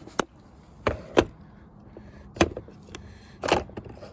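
Tools being handled in a plastic toolbox organizer: about five sharp clacks of metal bits being picked up and set down, the last a longer rattle.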